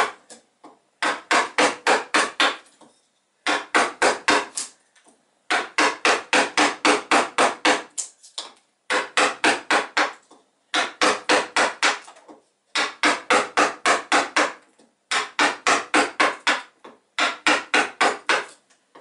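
Wooden mallet tapping a woodcarving gouge in quick runs of strikes, about five a second, with short pauses between runs. The gouge is cutting chips off the solid wooden hull of a model pond yacht to rough out its bow.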